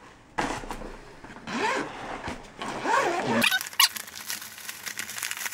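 Zipper of a vinyl carrying case being pulled open in about three long rasping pulls, followed from about three and a half seconds in by crinkling and rustling of plastic wrapping.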